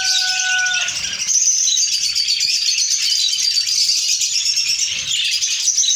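Budgerigars and lovebirds in an aviary chattering and chirping together, a dense high-pitched din that does not let up. A clear whistled note sounds through the first second.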